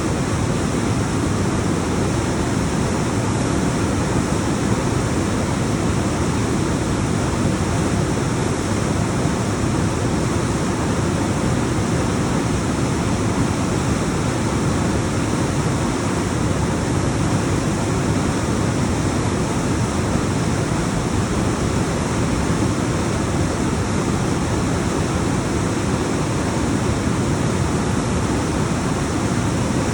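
Alpine waterfall: the continuous rush of water tumbling down rocks, a loud, steady roar of white noise that holds even without pauses.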